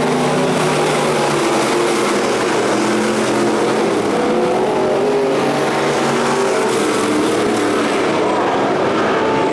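A pack of stock cars racing, several engines running at once, steady and loud, their notes rising and falling in pitch as the cars work through the turns and straights.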